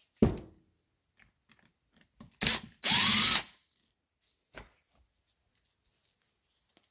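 Small workshop sounds: a sharp knock at the start and light clicks, then a brief half-second burst of a small power tool about three seconds in.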